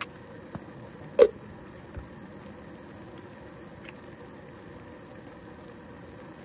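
Plastic camp coffee gear being handled: a few small clicks and taps, with one louder knock about a second in as a plastic container is set down on the surface. A faint steady hiss runs underneath.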